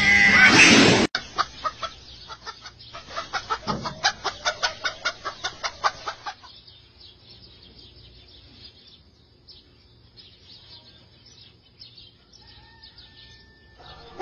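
A cat's loud yowl cuts off about a second in. Then a domestic hen clucks in a rapid run of short clucks for about five seconds, followed by fainter, sparser clucking.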